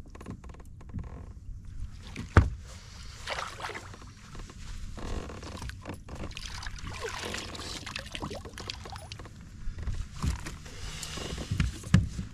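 Water splashing and sloshing beside a kayak as a hooked bass is netted, with sharp knocks about two seconds in and again near the end as the landing net is handled and brought aboard.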